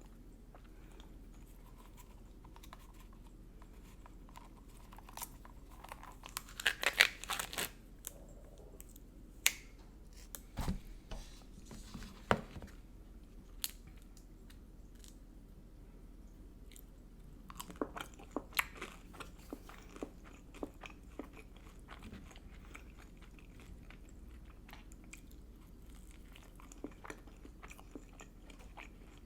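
A person biting and chewing food, with crunchy bites clustered about a quarter of the way in and again past the halfway mark, and scattered single mouth clicks and smacks between them.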